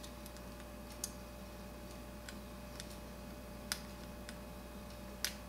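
Faint, irregular small clicks of a precision screwdriver working the tiny case screws of a BlackBerry Bold 9700, five or so over a few seconds, above a steady low hum.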